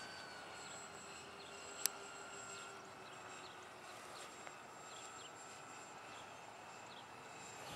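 Distant RC model B-26 bomber's motors droning faintly overhead as a thin, steady whine that sinks slightly in pitch. A single sharp click about two seconds in.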